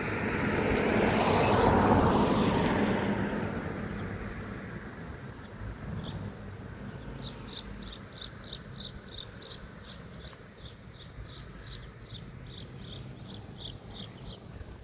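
A vehicle passes by: a broad rushing noise that swells to its loudest about two seconds in and fades away over the next few seconds. Then a steady run of short, high chirps, about three a second, goes on to the end.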